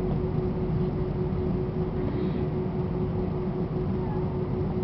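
Airbus A320 engines running steadily, heard from inside the passenger cabin: a constant hum with one held tone through it.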